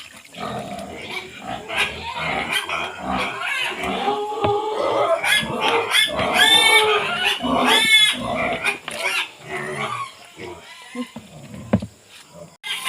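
Domestic pigs grunting and squealing. Two loud, high squeals come about six and a half and eight seconds in.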